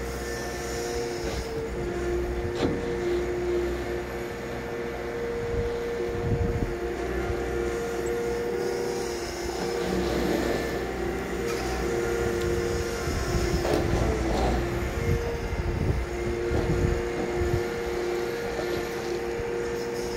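Liebherr crawler excavator working: its diesel engine and hydraulics run steadily as it digs, with scattered knocks and thuds from the bucket and soil.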